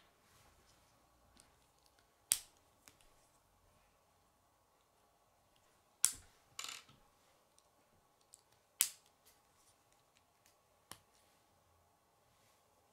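K'nex plastic rods and connectors snapping together: a handful of sharp, short clicks a few seconds apart, with two close together about six seconds in.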